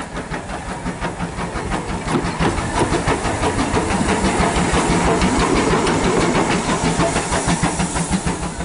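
Andrew Barclay 0-6-0 saddle tank steam locomotive passing close by, hissing steam over a fast run of sharp rhythmic beats. It grows louder as it comes alongside, is loudest through the middle, and eases off slightly near the end.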